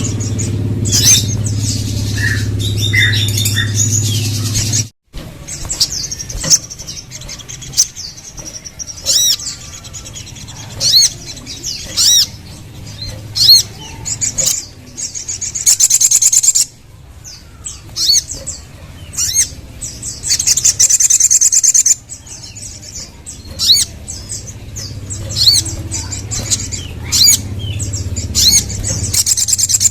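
Crimson sunbird (sogon) singing: a string of sharp, high chirps broken by dense, buzzy trills, loudest in long trills near the middle and end. A low hum sits under the first five seconds, and the sound drops out briefly about five seconds in.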